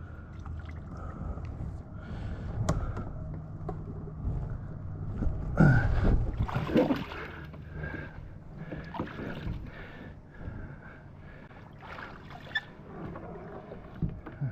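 Water splashing and sloshing around a kayak over a steady low rumble, loudest about six seconds in, with a few sharp knocks.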